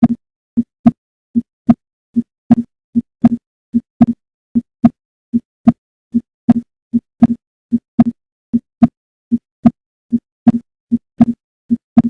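Heart sounds as heard through a stethoscope's diaphragm over the pulmonary focus (second left intercostal space): a regular lub-dub, short low thuds in pairs, about 75 beats a minute. The two sounds come from the closing of the atrioventricular valves and then the semilunar valves.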